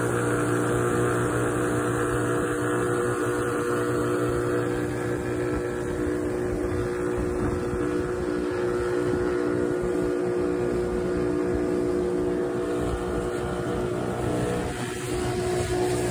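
Suzuki outboard motor running steadily at speed on a jon boat underway, with the rush of water from the wake.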